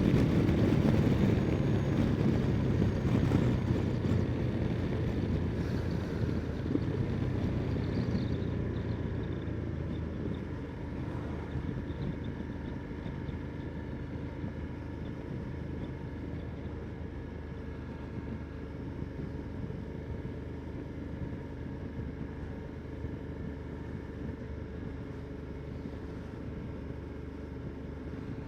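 Ducati Multistrada 1260 S's V-twin engine pulling away, then settling into a steady cruise and getting gradually quieter, heard through a helmet microphone.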